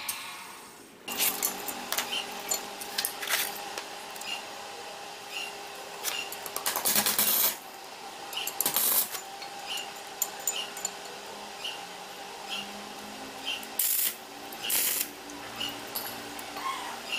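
Workshop tool noise during restoration of a rusty hatchet: a small motor hums steadily with a regular light ticking, over sharp metal clinks. Two short, loud, harsh stretches of scraping come near the middle and near the end.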